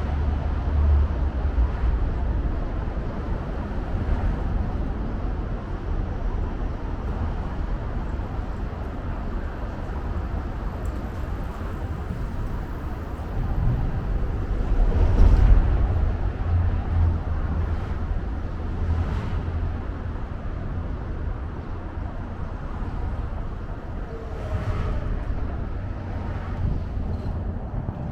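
Outdoor city ambience: a steady rumble of road traffic with a deep, uneven low end, getting louder about halfway through and then easing off.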